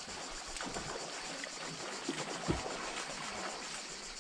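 A steady high insect drone with a fine rapid pulse, over soft lapping of shallow river water on pebbles. A few soft knocks, the strongest about halfway through.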